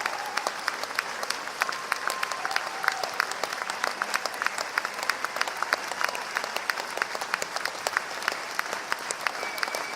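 Large concert audience applauding steadily, dense hand-clapping with a few short whistles through it.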